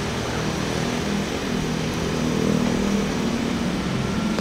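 A large diesel engine idling steadily, a low hum that grows a little stronger in the second half, with street traffic noise around it.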